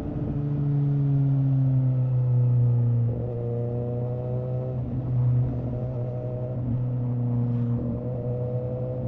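A 2017 Suzuki GSX-S750's inline-four engine running through a Yoshimura R11 exhaust with its dB killer removed, heard on the move. The note is steady and shifts a few times with the throttle.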